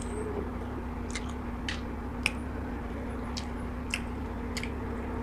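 Close-up chewing of fried chicken: short crunchy, wet mouth clicks every half second to a second, irregular, with no words between them.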